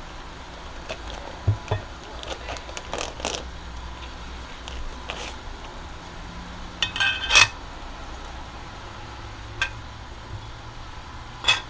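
Metal clutch parts handled on a workbench: scattered clicks and knocks as a clutch disc comes out of its plastic bag and steel blocks are set on a flywheel. A louder metallic clink with a brief ring about seven seconds in.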